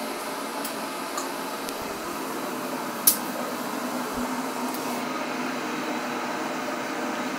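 Kettle heating water near the boil: a steady hiss and rumble. A single sharp click about three seconds in.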